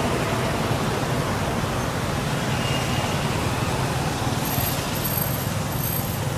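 Steady, even rumbling hiss of background noise with no distinct events. Faint thin high-pitched tones come and go from about four seconds in.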